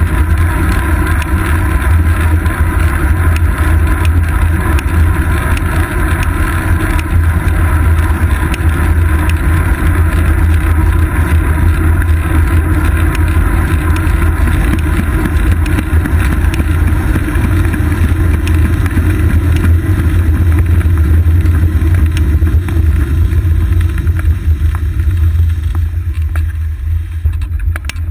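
Steady, loud low rumble of wind buffeting and road noise on a seat-post-mounted GoPro on a road bike riding along. It eases off near the end as the bike slows to a stop.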